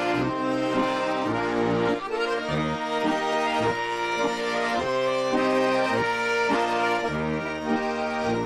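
Garmon (Russian button accordion) playing an instrumental folk dance tune, sustained chords over a bass that changes in a steady rhythm.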